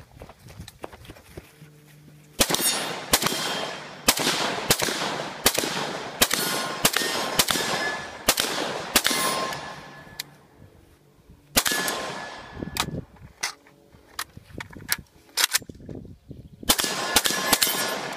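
Custom AK-74 rifle in 5.45x39 with a Battle Comp muzzle brake firing semi-automatic shots, about two a second, each crack followed by a long echoing tail. A fast string of shots, a pause about ten seconds in, a few scattered shots, then another quick string near the end.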